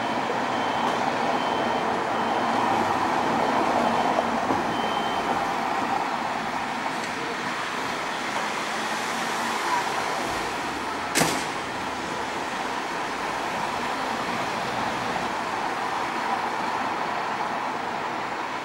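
Street traffic noise: a steady hum of vehicles and engines, with a row of short, evenly spaced high beeps over the first five seconds and a single sharp knock about eleven seconds in.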